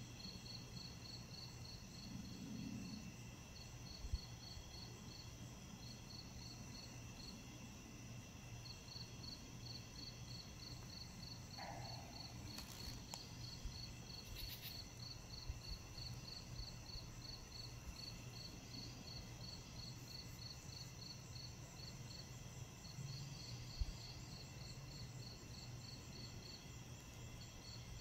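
Night insects: crickets chirping, one giving regular high chirps about four or five a second in runs with short pauses, over a steady high insect trill. A faint low hum runs underneath.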